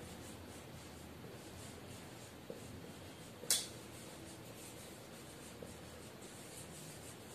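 Marker pen writing on a whiteboard: faint, quick strokes in a steady run, with one louder, sharp sound about three and a half seconds in.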